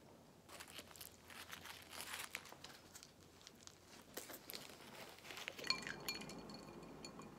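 Paper napkin crinkling and rustling as it is peeled off a tortilla wrap and crumpled up. Near the end a glass clinks once with a short ringing tone.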